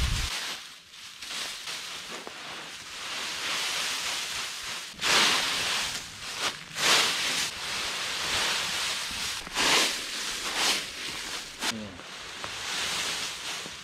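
Dry fallen leaves rustling and crunching as they are scooped up by the armful and heaped into a pile, with several louder swishes along the way.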